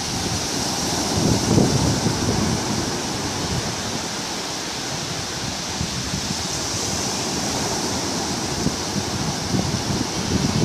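Surf breaking and washing up a sandy beach, with wind buffeting the microphone in gusts about a second in and again near the end.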